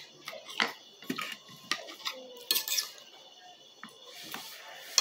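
Metal spoon scraping and clinking against a plate as food is scooped up, a handful of short scrapes spread through.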